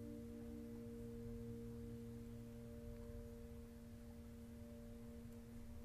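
Faint meditative background music: a drone of several sustained ringing tones, with one tone pulsing slowly and fading out about three seconds in.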